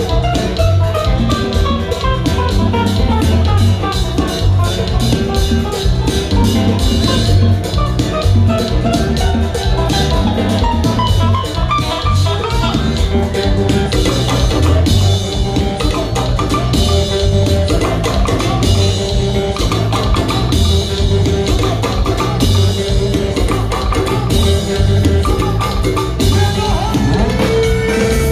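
Haitian kompa band playing live: a steady drum beat under guitar and melodic keyboard lines.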